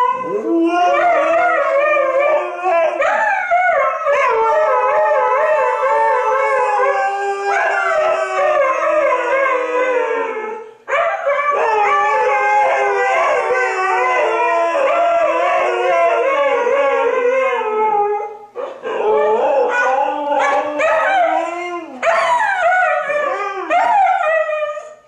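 Two Siberian huskies howling together in long, wavering howls that overlap at different pitches. There are brief breaks about eleven and eighteen seconds in, and the howls come shorter and choppier near the end.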